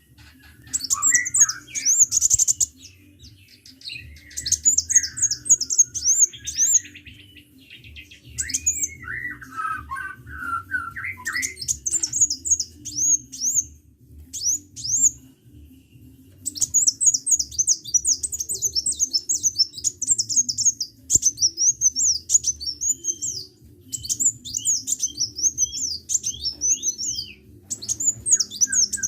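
Sunbird singing: runs of fast, high, downward-swept chirps a second or two long, repeated with short pauses, mixed with some lower warbling notes in the first dozen seconds. A faint steady low hum lies underneath.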